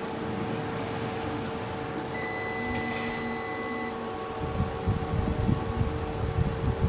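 Steady hum of workshop equipment, with a multimeter's continuity beep held for about two seconds in the middle, the sign of a short across the removed laptop DC jack. Handling knocks and rustles follow near the end.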